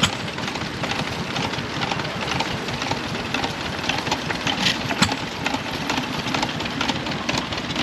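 An engine idling with a steady clatter of fast ticks. One sharper knock comes about five seconds in.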